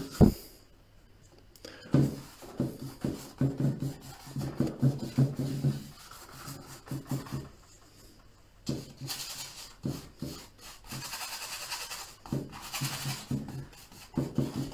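Stiff flat bristle brush scrubbing oil paint onto a stretched canvas in short strokes, a dry rasping rub, with a longer run of rapid scrubbing about two-thirds of the way in.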